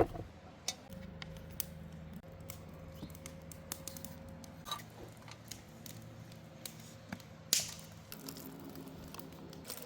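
Wood fire crackling with scattered sharp pops and one louder crack about seven and a half seconds in, over a faint steady low hum.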